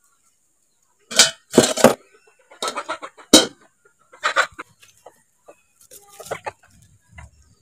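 Steel cookware clanking: a steel plate and lid knocking against a steel pot as they are set on it, in a string of sharp metallic knocks with the loudest about three seconds in, and a few more later.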